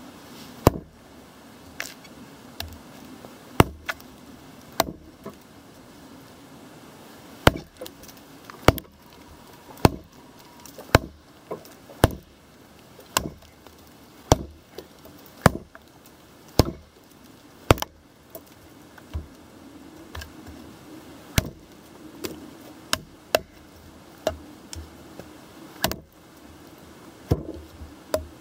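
Condor Pack Golok, a short high-carbon-steel chopper, chopping into a log: sharp blade strikes into the wood about once a second, a steady run of some two dozen blows.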